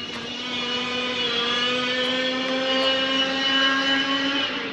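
Propeller airplane engine droning as it flies past, one steady pitched hum that swells and then drops in pitch near the end.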